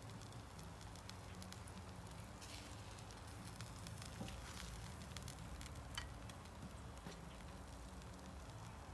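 Chicken drumsticks sizzling faintly on a charcoal grill's grate, with a few light clicks of metal tongs against the grate as pieces are lifted off.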